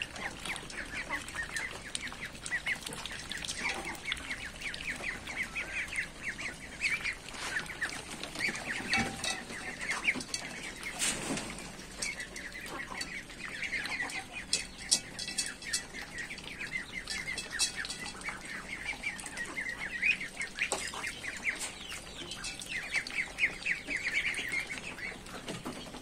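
A flock of young ducks peeping continuously, many short, high calls overlapping in rapid runs, with a few sharp clicks around the middle.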